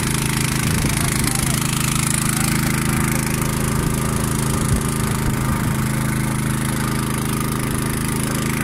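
Engine-driven water pump running steadily at a constant speed, drawing water out of a muddy puddle through a suction hose.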